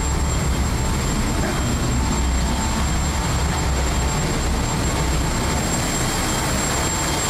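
Loud, steady din of a river cruise boat's diesel engines and generators running, heard from inside the engine spaces. A deep hum sits under a dense mechanical noise, with a thin steady high whine on top.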